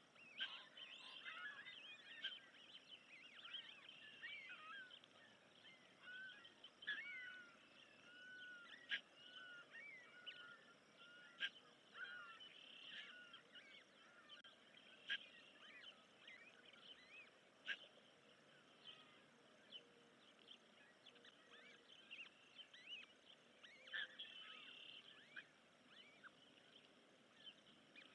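Faint, continual high chirping and short rising-and-falling peeps from newly hatched osprey chicks, typical of begging while being fed, with a few sharper chips standing out.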